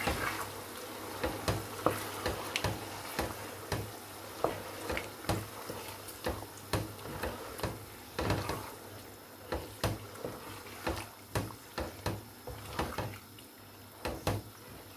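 Wooden spatula stirring onions and tomatoes frying in oil in a pot: irregular knocks and scrapes against the pot, about one to two a second, over a faint steady sizzle.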